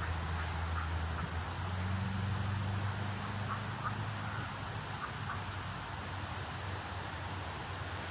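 A low steady motor hum over a constant hiss. The hum shifts up in pitch about a second and a half in and fades out after about four seconds. A few short, faint, high calls come in the first half.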